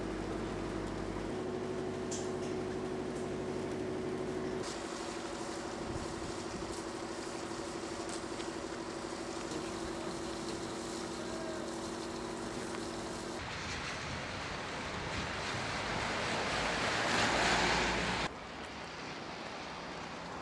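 Ambient sound on a moored river boat: a steady machine hum with even tones, then a rushing wind noise that swells louder and cuts off sharply about eighteen seconds in.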